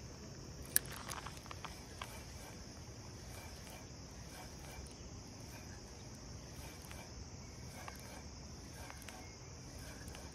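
Steady high-pitched chorus of insects, typical of crickets, with one sharp click about a second in as the spinning reel's bail snaps shut after the cast, then faint regular ticks.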